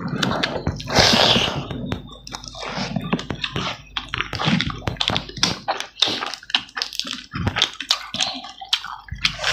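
Close-up wet eating sounds: irregular chewing, lip smacking and squelching as fingers press and mix rice with curried chicken. A louder, short noisy rush comes about a second in.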